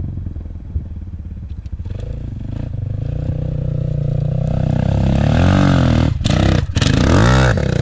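Regulmoto dirt bike engine accelerating, its pitch climbing steadily as it gets louder. Near the end the revs swing up and down a few times, and the sound cuts out briefly twice.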